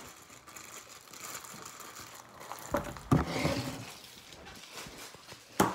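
Handling noises of sticky turquoise slime being squished in the hands and pushed into a plastic bag, with scattered soft clicks and a sharp knock near the end.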